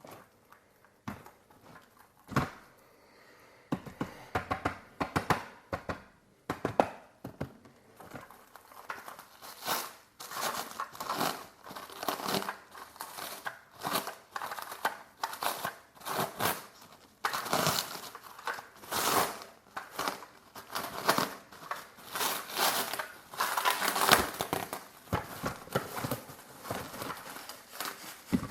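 Packaging being unwrapped by hand: irregular crinkling and tearing of wrapping, sparse at first and turning busier and louder after several seconds.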